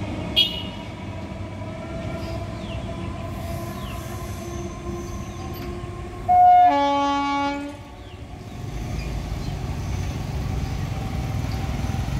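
MEMU electric multiple unit train sounding one long horn blast about six seconds in, lasting about a second and a half, over the low rumble of the approaching train, which grows louder toward the end. A brief high beep sounds just after the start.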